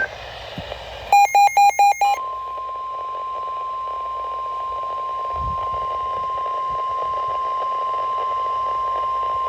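A weather radio alert: five quick beeps, then the steady high alarm tone of NOAA Weather Radio (its 1050 Hz warning tone), which signals that a warning is about to be read, over faint radio hiss.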